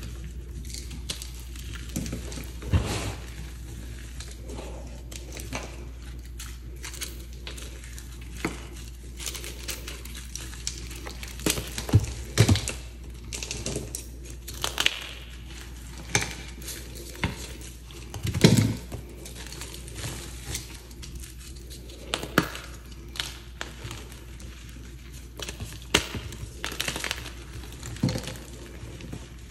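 Hands squeezing and crumbling soft reformed gym-chalk blocks into powder: dense, irregular dry crunches and crackles, with a few louder crunches about twelve and eighteen seconds in.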